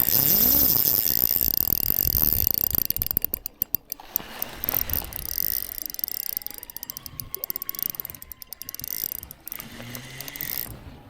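Fishing reel ratcheting in rapid clicks while a hooked steelhead is played, dense for the first few seconds, then in shorter, sparser runs.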